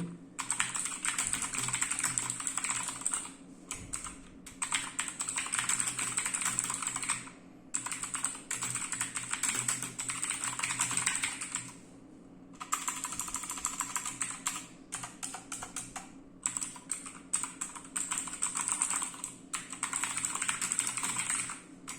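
Typing on a mechanical keyboard with clicky Gateron Blue switches: fast runs of sharp key clicks broken by short pauses of a second or less every few seconds.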